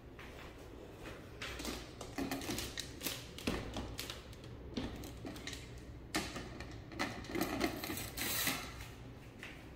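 Plantation shutters being handled: an irregular run of clicks and short clattering rattles from the louvers and panel, in clusters over several seconds.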